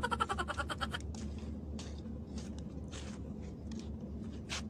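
A short burst of laughter fades out within the first second. Faint scattered scuffs and clicks follow over a steady low outdoor rumble.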